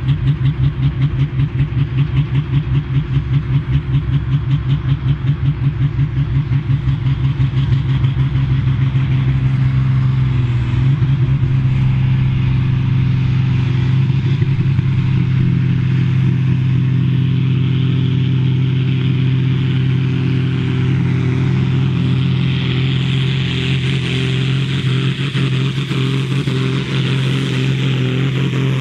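Farm-class pulling tractor's diesel engine held at high revs with a rhythmic pulsing lope for about ten seconds, then running steadily at full throttle as it pulls the sled. A hiss builds in the last several seconds.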